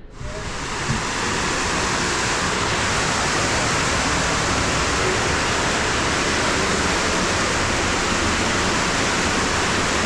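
Waterfall pouring inside a cave, a steady loud rush of water that cuts in suddenly at the start. The flow is high from a week of rain.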